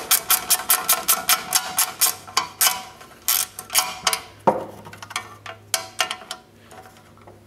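Ratcheting wrench clicking as it tightens a bolt, about five even clicks a second at first, then slower, uneven clicks that die away near the end.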